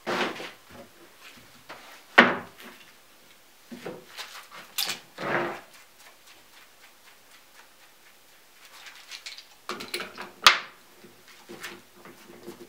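Scattered knocks and clicks of a Kreg pocket-hole jig and its clamp being handled and set on a pine board, with a sharp snap about ten and a half seconds in as the clamp is locked down.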